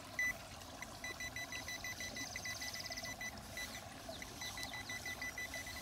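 Pro-Pointer metal-detector pinpointer beeping in a fast run of short high beeps, pausing for about a second midway and then starting again: the pinpointer is signalling metal right under the sand at its tip. The creek trickles faintly underneath.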